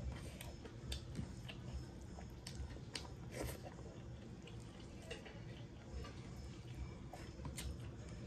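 Close-up chewing and wet mouth sounds of a person eating smoked pork and rice: scattered small smacks and clicks over a low steady hum.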